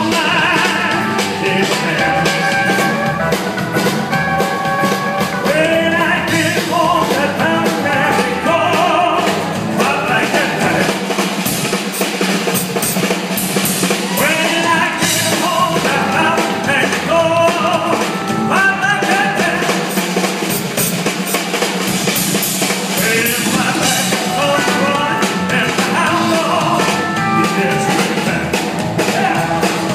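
Live rock and roll band playing, a man singing lead over acoustic and electric guitars and drums.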